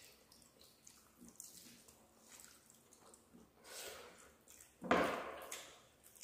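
Soft wet squishing of rice and curry being mixed and scooped by hand from steel plates, with quiet chewing and mouth sounds. A louder short wet noise comes about five seconds in.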